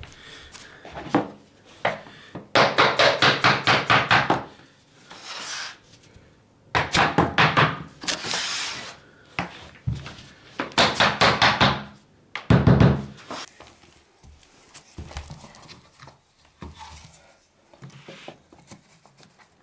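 Laminate floor planks being tapped into place with a hammer, struck in three quick runs of about five blows a second, with a heavier thud about twelve seconds in and scattered lighter knocks after.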